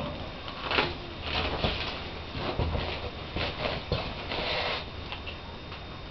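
Irregular rustling and light scratching from a pet rabbit moving about in its wire cage, dying down about five seconds in.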